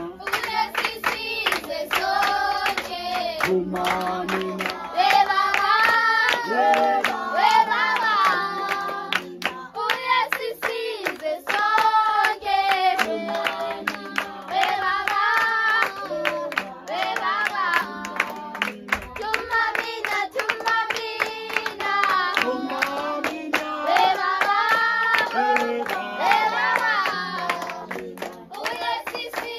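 A group of children and young people singing a church hymn together in unison, clapping their hands along in time.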